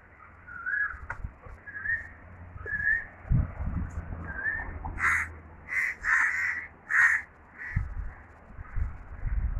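Crows cawing, a run of about five harsh caws in the middle, after a few short whistled notes early on; low rumbles of wind or handling on the microphone.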